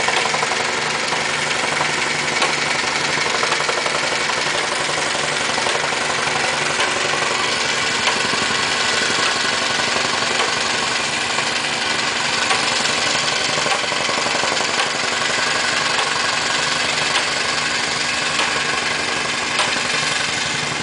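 An engine running steadily at idle, with no change in speed.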